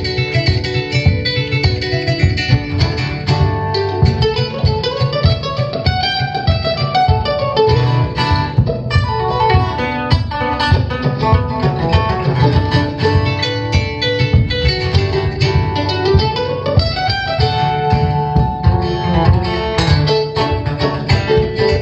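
Live acoustic band playing an instrumental bluegrass–West African piece, led by busy plucked runs on guitar and kamale ngoni. Two long rising slides come about four and sixteen seconds in.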